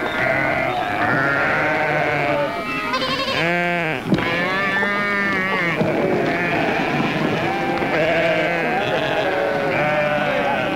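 A flock of sheep bleating, many calls overlapping without a break, with one loud, long bleat a little past three seconds in.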